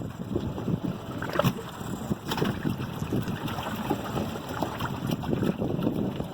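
Water sloshing and lapping against a small boat at sea, with wind on the microphone and a few short knocks.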